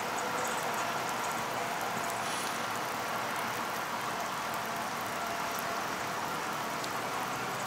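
Steady hiss of rain falling on the river, with a faint, even engine hum from a cargo ship moving past.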